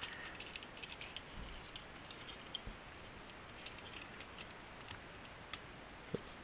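Faint, scattered small clicks and taps of hard plastic parts as a Transformers Bumblebee action figure, in its Volkswagen Beetle car mode, is handled and transformed by hand, over a low steady hiss.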